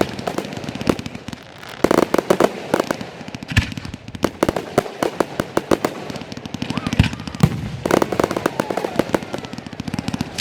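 Fireworks going off: rapid, dense strings of sharp cracks and bangs, coming in thicker clusters about two seconds in and again near the end.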